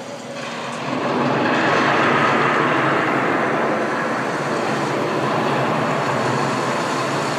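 Heavy rain pouring down: a steady hiss that swells over the first second or so and then stays loud.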